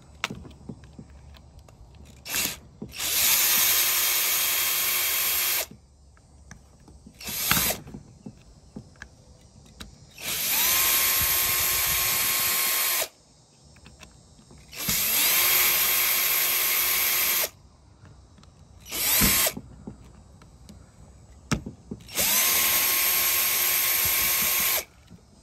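Cordless drill-driver backing out the small screws of a string-trimmer carburetor's primer-bulb cover plate. It makes four runs of about two and a half seconds each, and each run spins up to a steady whine. There are a few short trigger blips in between.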